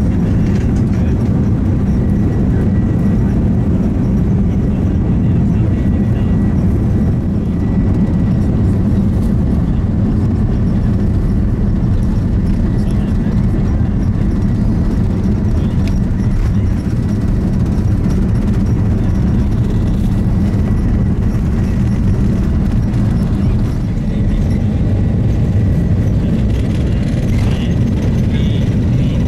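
Airbus A330-200 engine and airflow noise heard inside the passenger cabin: a loud, steady low rumble with a faint steady high tone over it.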